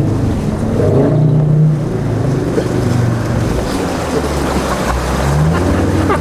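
Land Rover Defender 90's Td5 five-cylinder turbodiesel running under load while pushing through deep, flowing flood water, with the rush and splash of the bow wave over it. The engine note rises about five seconds in.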